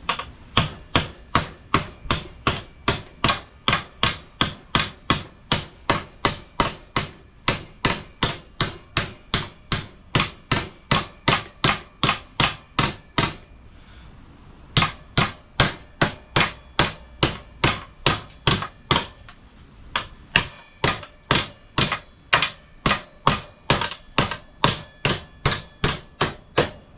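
Steady hammer blows on a sheet-steel repair panel, about two or three a second, each with a short metallic ring, as its lip is tapped over into a bend. The hammering stops briefly about halfway through and again for a moment later on.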